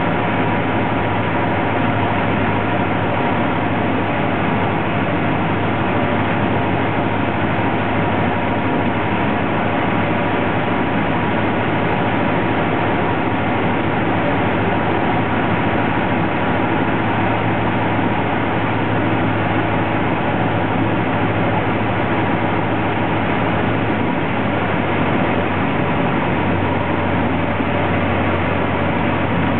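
Cessna 150L's four-cylinder Continental O-200 engine and propeller running as a steady drone, its note dropping slightly near the end.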